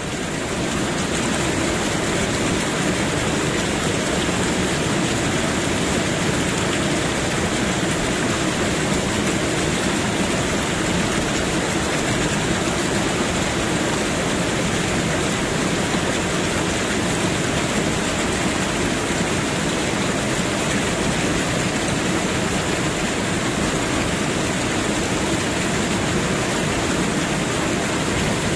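Steady, even rushing noise like running water or rain, with no tune, beat or voice standing out.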